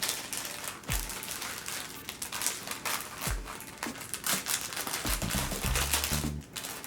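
Wrapping around the bow ties crinkling and rustling as it is handled and opened, over background music with a steady kick drum; a bass line comes in about five seconds in.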